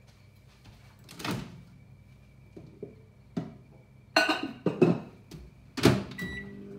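Microwave oven being loaded and started: clatter of the door and a bowl about four seconds in, the door shut with a loud thunk near the end, then keypad beeps and the oven starting to run with a low hum, heating a spoonful of ghee to melt it.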